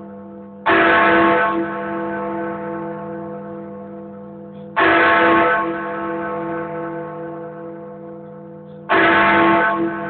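Big Ben, the Great Bell of the Elizabeth Tower, struck by its hammer three times about four seconds apart, heard close up in the belfry. Each loud clang leaves a long hum of many tones that fades slowly into the next. These are strokes of the bell striking the hour of twelve.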